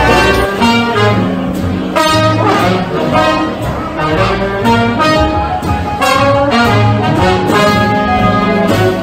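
Small jazz band playing, with trombone and saxophone out front over electric keyboard, guitar and upright bass.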